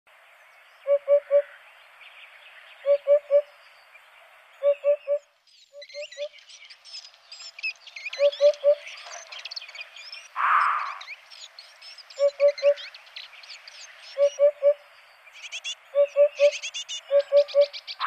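Eurasian hoopoe singing its low, soft 'oop-oop-oop': groups of three short notes repeated about every two seconds. Higher chirps of other songbirds join from about six seconds in, and a brief hiss comes about ten seconds in.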